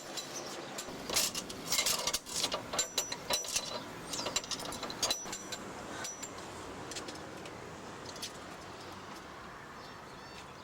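Payphone in use: a run of sharp mechanical clicks and small metallic clinks, busiest in the first six seconds and then thinning out, as coins go in and the phone is worked to place a call.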